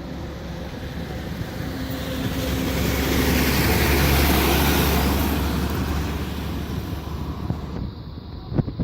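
Boeing 737-8 MAX jet airliner, with CFM LEAP-1B engines, passing close by as it comes in to land. Its engine noise swells to a peak about four seconds in and then fades away. A brief knock sounds near the end.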